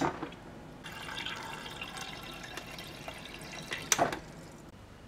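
Refrigerator door water dispenser pouring a stream of water into a glass, with a sharp click at the start and another about four seconds in as the flow stops.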